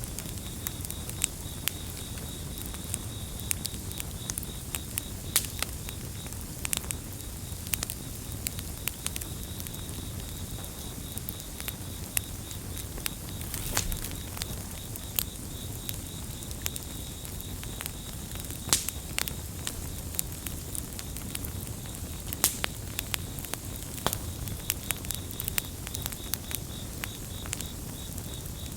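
Campfire burning with frequent sharp crackles and pops over a steady low rumble, and a cricket chirping in quick, even pulses throughout.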